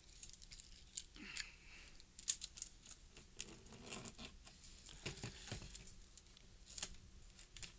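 Faint scattered clicks and crinkling of a package being cut open and its wrapping handled.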